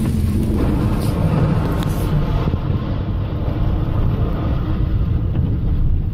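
Car driving on a wet road, heard from inside the cabin: a steady low engine and tyre rumble, with a hiss in the upper range that drops away about two seconds in.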